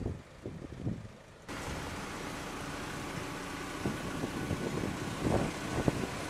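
Fire engine running steadily, a continuous mechanical hum that starts abruptly about a second and a half in, after a short stretch of wind rumble. A few knocks near the end.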